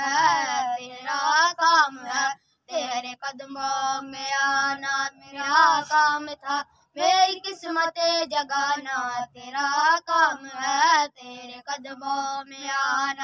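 A high solo voice singing a naat (a devotional song in praise of the Prophet), in long wavering, ornamented phrases broken by short breaths.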